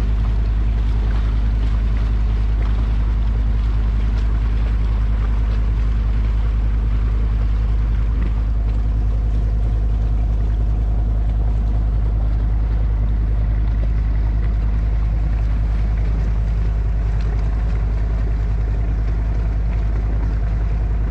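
Sailing yacht's inboard engine running steadily under power, a low, even drone that does not change.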